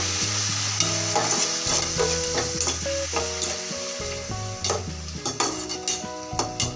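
Chopped onions and tomatoes sizzling in hot oil in a non-stick kadai while a slotted spatula stirs them, scraping and clicking against the pan, with the clicks coming more often in the second half. This is the sautéing stage, with the tomatoes just added to the softened onions.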